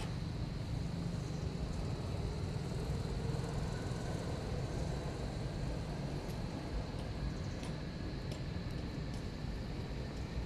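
Steady low rumble of outdoor background noise, with a faint high steady tone and a few faint ticks over it; no animal call stands out.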